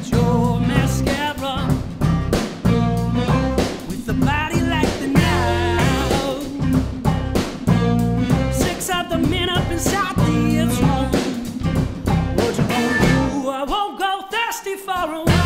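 A live rock band playing: electric and acoustic guitars, electric bass, drum kit and saxophone. Near the end the bass and drums drop out for about a second and a half, then the full band comes back in.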